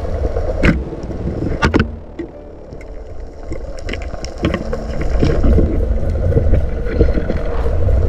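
Underwater sound through a dive camera: a low steady rumble of water and handling noise, broken by sharp knocks, one just under a second in and a louder pair near two seconds in, as the band-powered speargun is fired and strikes a fish.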